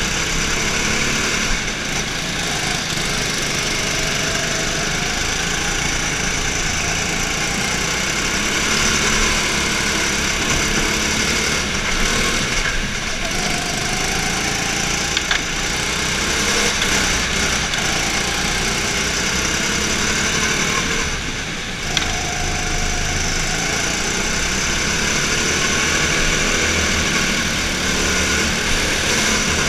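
Kart engines running at racing speed, heard from the driver's seat of one kart. The engine pitch rises and falls with the throttle through the corners, over a steady wash of engine and tyre noise.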